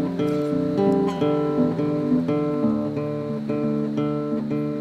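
Background music: acoustic guitar playing a steady run of plucked notes.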